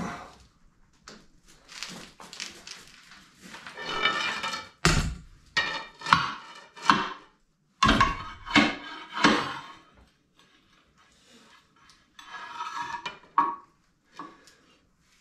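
Steel plates clanking and scraping on concrete as a plate is repositioned under a heavy machine: irregular metal knocks, several with a short ring, thickest in the middle and again near the end.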